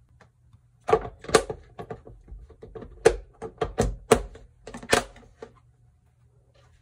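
About a dozen sharp clacks and knocks of containers being handled and set down on a kitchen counter, bunched between about one and five and a half seconds in.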